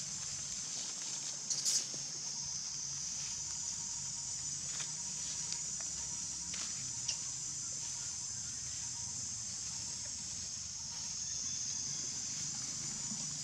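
Steady high-pitched insect drone, like a cicada chorus, with a few short soft clicks and rustles.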